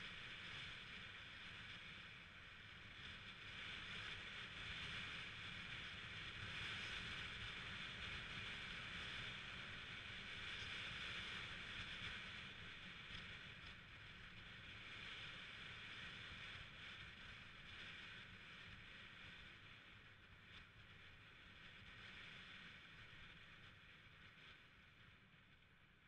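Faint, steady wind and road noise of a Yamaha 125cc scooter in motion, fading near the end.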